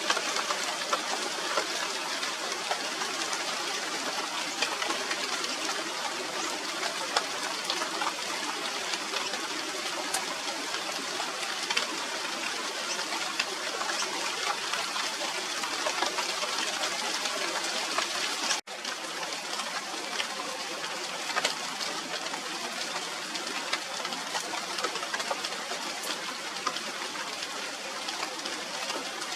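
Steady rain falling on the leaves of a China doll tree (Radermachera sinica): a dense, even hiss of pattering drops with scattered individual drop ticks. The sound cuts out for an instant about two-thirds of the way through, then goes on slightly quieter.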